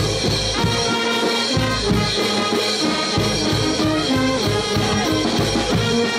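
Brass band playing a lively tune: trumpets and trombones carry the melody over a steady percussion beat of about four strokes a second.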